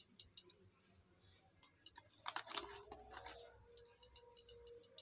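Faint clicks and light taps of a spoon against a steel bowl as red chilli powder is shaken onto marinating chicken, with a small cluster of taps a little after the middle, over near-silent room tone and a faint hum.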